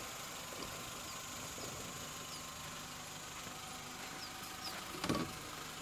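Jeep's engine running quietly under a low steady background, with faint high chirps and a short knock about five seconds in.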